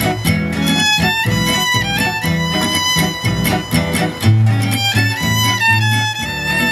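Gypsy jazz (jazz manouche) quartet playing: a violin carries a held, stepping melody over two acoustic guitars strumming the rhythm, with a double bass underneath.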